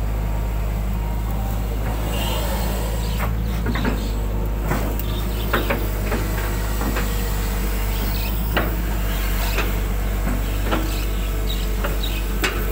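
Hitachi 120 hydraulic excavator's diesel engine running steadily while digging, with scattered short knocks and clanks as the bucket works through the mud of the ditch.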